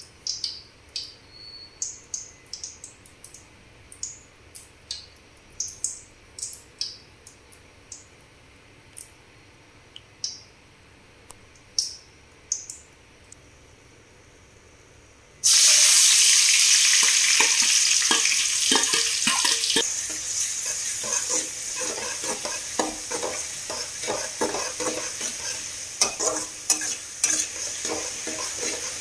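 Hot oil in a hammered metal kadai giving scattered small pops and crackles. About halfway through, chopped onions and green chillies hit the oil with a sudden loud sizzle. The frying sizzle then continues, with a spoon scraping and stirring against the pan.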